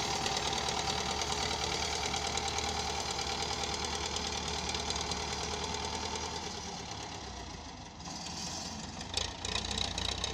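Belarus 510 tractor's four-cylinder diesel engine running steadily as the tractor works soil with its blade. The sound dips briefly near the end, then comes back with a few uneven knocks.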